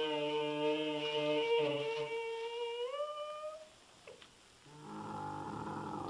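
Bactrian camel calling: a long, steady, pitched call that rises in pitch about three seconds in and then stops. After a short pause a second, rougher call begins.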